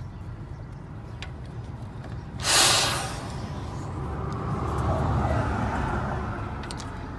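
A short, sharp hiss of compressed air, typical of a truck's air brakes releasing, about two and a half seconds in, over a low steady vehicle rumble. The rumble grows louder in the second half and then eases.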